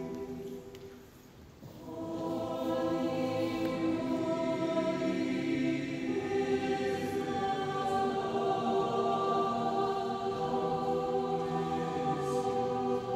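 Large mixed choir singing held chords. The sound thins to a brief pause about a second in, then the choir comes back in and the chords fill out.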